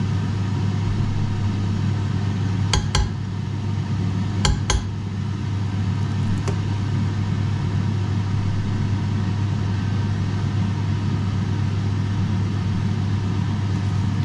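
Steady low mechanical hum in a kitchen, with two pairs of sharp clicks about three and four and a half seconds in.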